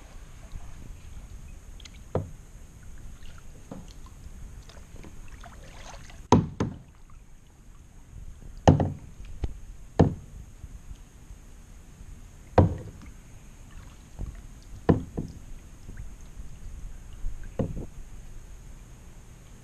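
Paddling a plastic sit-on-top kayak: a sharp knock from the paddle strokes every two to three seconds, the loudest in the middle stretch, over a steady low background noise.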